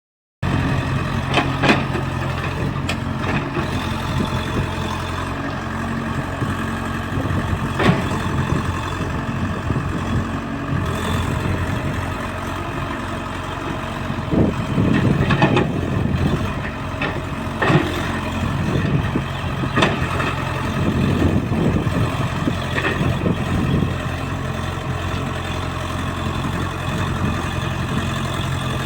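Diesel engine of an EX70 excavator running steadily, with scattered knocks and clanks and a few rougher, louder stretches from the working machine.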